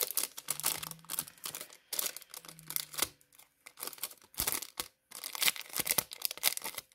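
Crinkling and tearing of a brown parchment-paper bag sealed with clear tape as it is pulled open by hand, in many irregular crackles.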